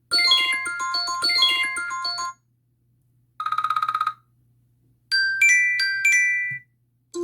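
iPhone ringtone and alert sounds played one after another, with silent gaps: a quick melodic chime phrase, then a short rapidly pulsing tone, then another brief chime phrase with high notes.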